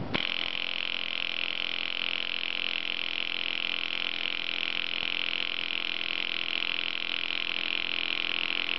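Flyback transformer switched on and running: a steady buzz with a bright hiss that starts abruptly, the high voltage arcing across the transformer's uninsulated pins.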